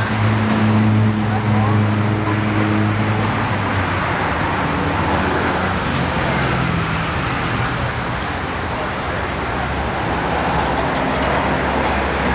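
Roadside traffic noise: a motor vehicle's engine running close by, its low hum fading about four seconds in, over a steady wash of street noise.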